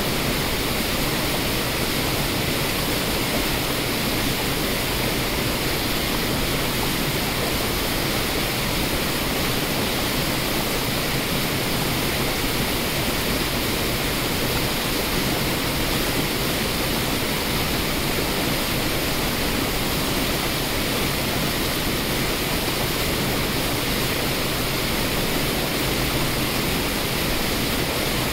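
Waterfall and white-water cascades rushing over rock: a steady, unbroken sound of falling water.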